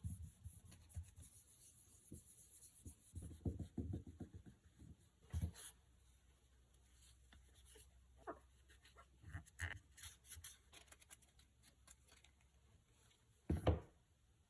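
Alcohol wipe rubbing and scrubbing over an iPhone and its clear plastic case, with soft scraping and small handling knocks. A louder knock comes near the end.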